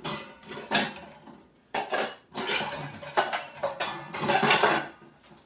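Kitchenware being handled: dishes and metal pots clinking and clattering, a couple of short knocks early on, then a longer run of rattling and scraping in the second half.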